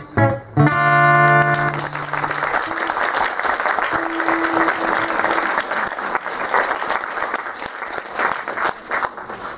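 A final strummed chord on an acoustic guitar rings out about half a second in and fades. Audience applause follows and fills the rest, with a faint single guitar note sounding under it around the middle.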